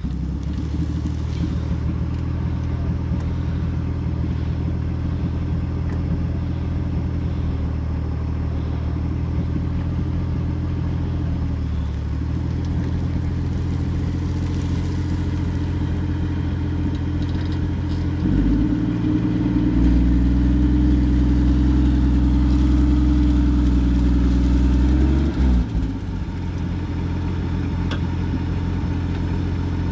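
Jeep CJ5's engine running at a steady low speed. About eighteen seconds in it speeds up and holds there, louder, for about seven seconds, then drops back to its earlier speed.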